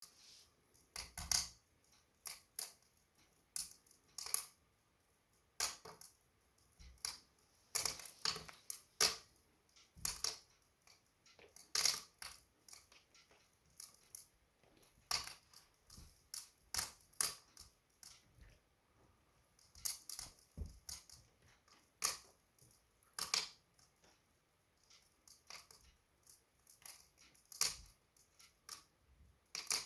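Wood fire burning in a fireplace, crackling and popping in irregular sharp snaps, some in quick clusters, with quiet gaps between.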